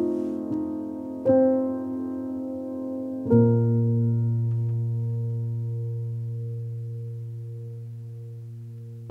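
Background piano music: slow chords, the last struck about three seconds in and left to ring and fade slowly.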